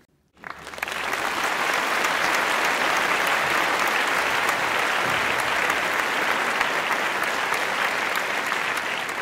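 Crowd applause, a dense even clapping that swells in within the first second and holds steady, added over the footage as a sound effect.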